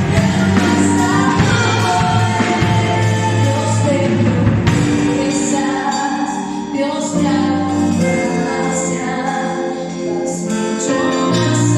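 Christian worship song: singing over a band, with long held bass notes and chords.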